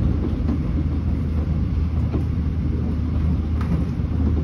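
Steady low rumble of a subway train running, heard from inside the car, with a few faint clicks.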